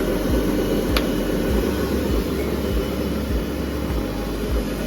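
HGSF-600 garlic splitter and clove sorter running, a steady mechanical hum with irregular low knocks and a sharp click about a second in.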